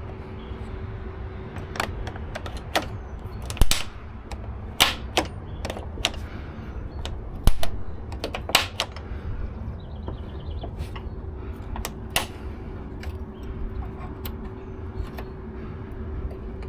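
Irregular clicks and knocks of small parts and tools being handled during hand assembly work on a truck, over a steady faint hum. About ten seconds in there is a brief run of fast ticks.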